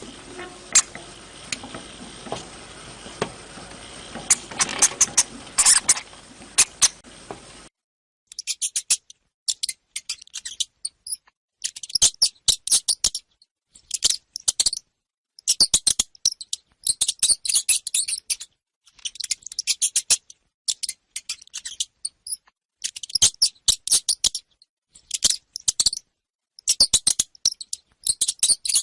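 Hamster squeaking in quick clusters of high-pitched chirps, about one cluster every second or two with silence between. Before that, for the first several seconds, a different recording of sharp clicks over a steady hiss cuts off abruptly.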